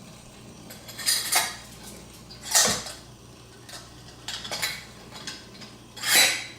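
Metal fidget spinner clinking and clattering against a hard surface several times, a second or two apart, during attempts to balance it spinning on a fingertip.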